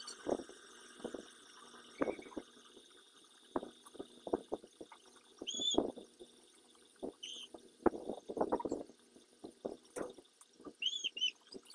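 Rustling, scratchy handling sounds of hair and cloth socks being wrapped and tied, coming in irregular bursts. A few short high chirps sound in the background, about halfway through and twice near the end.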